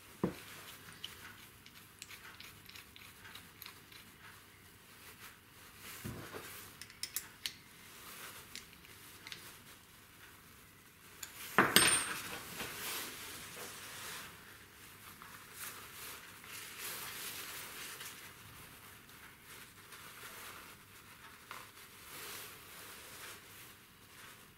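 Small metal parts, screws, washers and a small open-end spanner, clinking and tapping against a wooden workbench as wooden knobs are assembled by hand, with one sharp clack about twelve seconds in.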